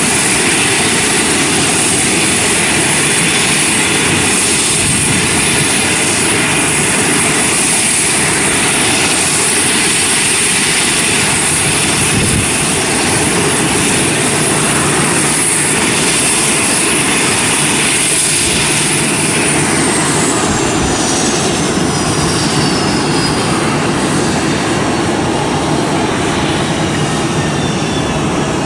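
Dash 8-400 twin turboprop taxiing, its engines and propellers running with a loud steady high whine over a broad rush. About two-thirds of the way through, the whine slides down in pitch.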